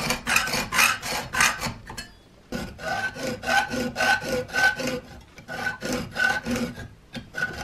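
Hacksaw cutting through the knuckles of a small metal hinge clamped in a vise, in quick back-and-forth strokes. The sawing stops briefly about two seconds in, then carries on.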